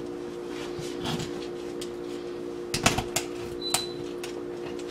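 Kitchen knife cutting raw chicken and knocking on the cutting board: a few sharp knocks close together about three seconds in and one more a little later, over a steady low hum.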